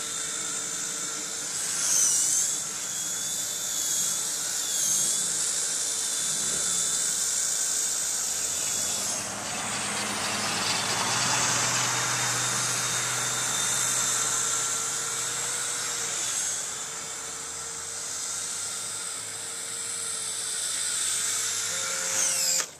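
A small toy's high-speed electric motor whining steadily, its pitch dipping briefly a few times. Near the middle a car drives past, its tyre and engine noise swelling and fading.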